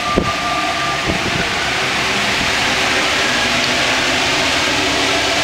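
Rubber-tyred Paris Métro Line 1 train running through a tunnel, heard from inside the driver's cab: a steady rushing running noise. A short knock comes just after the start, and a thin steady tone stops about a second in.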